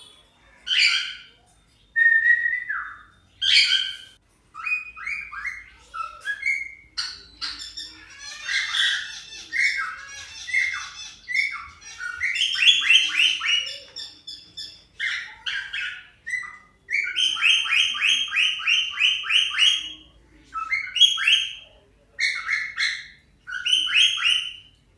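Cockatiels calling: repeated squawks and chirps, some drawn out into rapid pulsed runs of a second or more, the longest about three seconds long near the middle.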